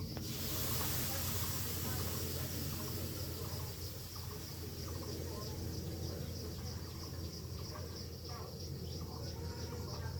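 Insects trilling steadily over a low, steady hum.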